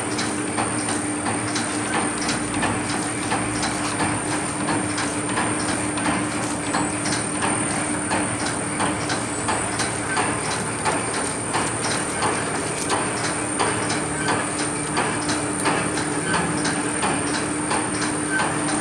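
Heat-cutting plastic bag making machine running, with a steady hum, a high steady whine and a quick, even clicking from its feeding and cutting cycle.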